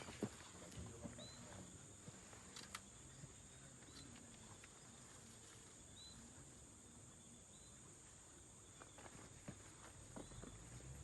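Near silence: faint outdoor background with a steady high-pitched hiss, a few faint short chirps and scattered light clicks.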